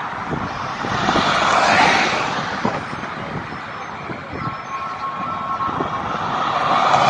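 Steady roar of vehicle traffic from an approaching motorcade, swelling about a second in and again near the end. A steady two-note tone sounds for about a second and a half midway.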